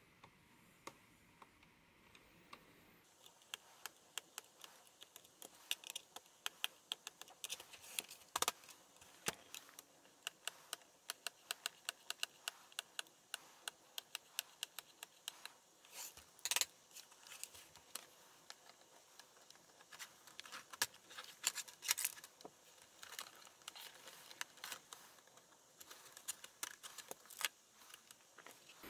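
Plastic laptop case clips clicking and snapping as the keyboard deck is pried off the base with a plastic pry tool: a long run of small clicks, with two sharper snaps.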